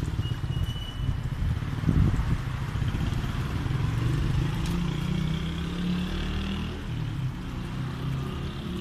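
A motor vehicle's engine running steadily, a low hum that wavers slightly in pitch, over street noise.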